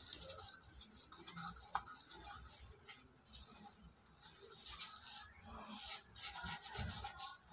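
Paintbrush bristles rubbing across a wall in repeated short strokes as paint is brushed on.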